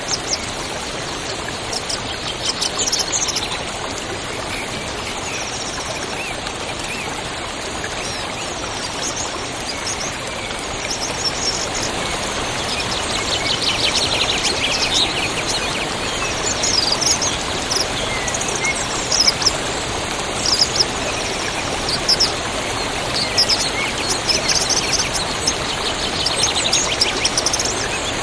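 Steady rush of a flowing river with many songbirds chirping and trilling over it, the bird calls growing busier in the second half.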